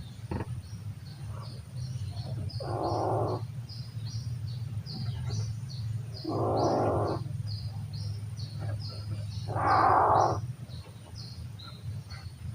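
A stray cat making a strange breathy, noisy sound three times, each under a second long and about three and a half seconds apart. A steady run of short high chirps, about three a second, goes on behind it.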